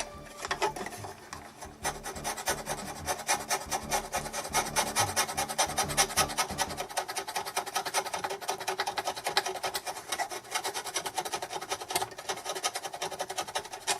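Fast, repeated scraping strokes, several a second, of a scraper working leftover sticker glue off the plastic keys of an electronic keyboard.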